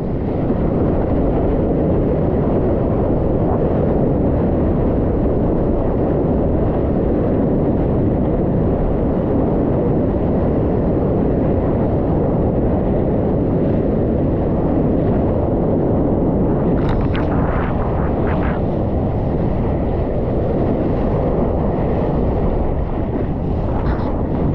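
Wind and rushing water buffeting an action camera's microphone as a surfboard rides a breaking wave through whitewater: a loud, steady rumbling rush, with a few sharp splashes about two-thirds of the way through.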